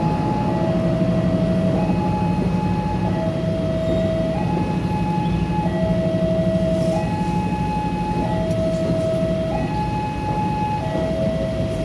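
Electronic railway level-crossing alarm sounding a two-tone warning, switching between a higher and a lower pitch about every one and a quarter seconds, over the steady low hum of a train's diesel engine.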